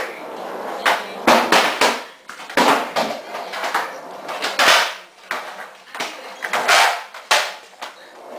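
Skateboard on a concrete floor: sharp cracks of the tail popping and the deck and wheels slapping down, several times over, with wheels rolling in between.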